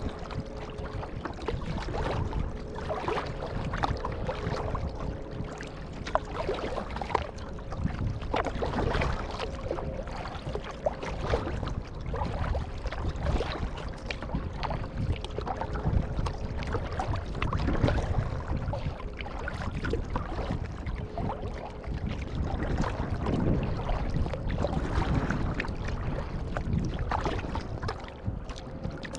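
Kayak paddling: paddle blades dipping and splashing stroke after stroke, with water washing along the hull.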